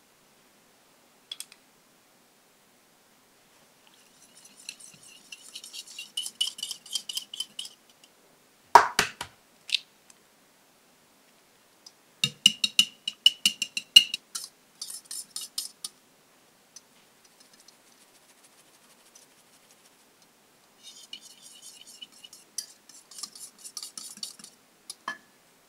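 A metal spoon stirs sugar into melted butter in a small glass bowl, then a wire whisk beats an egg into the mixture. Both make quick, light clinks against the glass in several spells, with one loud sharp knock about nine seconds in.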